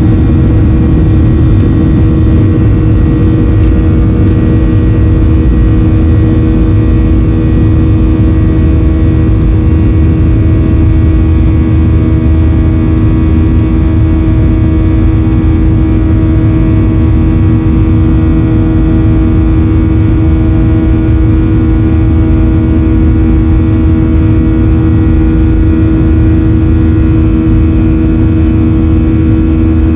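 Boeing 737-800's CFM56 turbofan engines at high thrust in the climb after takeoff, heard inside the cabin: a steady, loud buzzsaw drone of many held tones over a deep rumble. A fainter tone pulses slowly from about eight seconds in.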